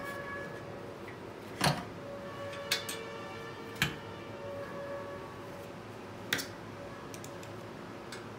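A few sharp clicks and knocks, about five, as a metal exhaust tip assembly and its plastic bracket are handled and set against a table, the loudest about a second and a half in, over a faint steady background.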